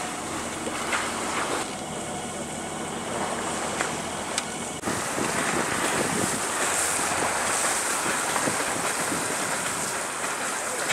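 Wind buffeting the microphone over the rush of choppy sea and a sailing yacht's foaming wake, a steady rushing noise that gets louder after an abrupt change about five seconds in.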